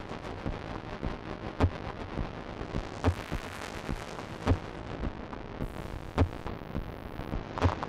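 Live experimental electronic music from a modular synthesizer: a deep booming hit about every one and a half seconds over a rumbling, crackling noise texture.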